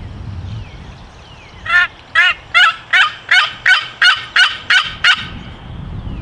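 A series of about ten turkey yelps, evenly spaced at roughly three a second, each note breaking downward in pitch.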